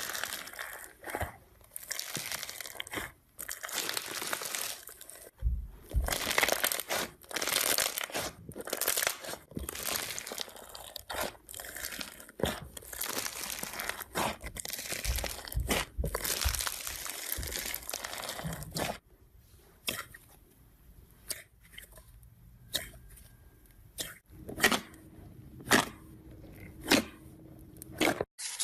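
Slime being pressed and squeezed by hand, making a dense, crackling crunch. About two-thirds of the way in it thins out to separate pops and clicks.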